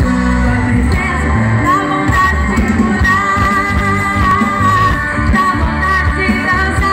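Live Christian worship band playing through a stage PA: a singer holding long, wavering notes over drums and guitars.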